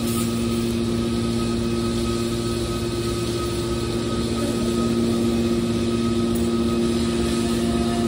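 Hydraulic metal baler's power unit running: a steady motor-and-pump hum with a whine over it, a little louder from about halfway through.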